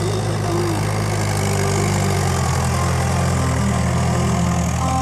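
Mahindra 475 DI XP tractor's four-cylinder diesel engine running steadily while the cage-wheeled tractor drags a puddler through deep paddy mud; its engine note shifts slightly about halfway through.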